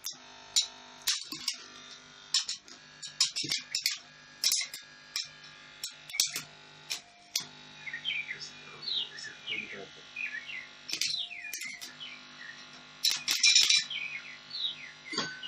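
Background music of plucked guitar notes, with birds chirping from about halfway through.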